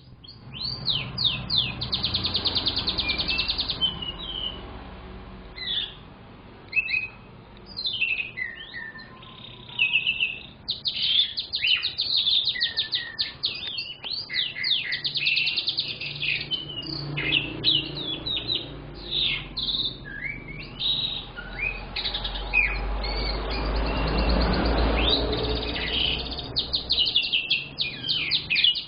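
Young domestic canary singing a long, continuous song of fast trills and rapid sweeping notes, broken by short pauses. A low rumble runs under the song for a few seconds near the end.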